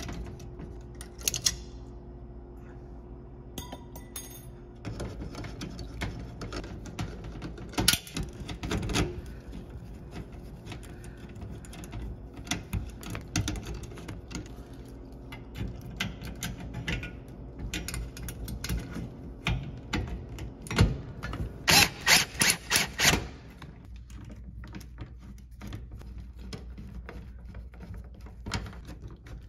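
Screwdriver turning the screws on an electric range's terminal block, with scattered metal clicks and taps as the wire terminals are fitted and tightened. About three-quarters of the way through comes a quick run of about seven sharp clicks.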